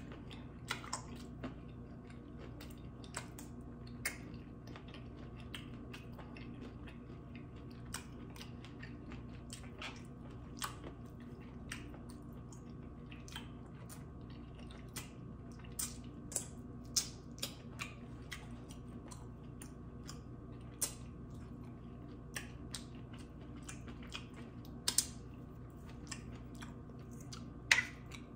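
Close-miked eating: chewing with scattered short, sharp mouth clicks and smacks, a couple of them louder near the end, over a steady low hum.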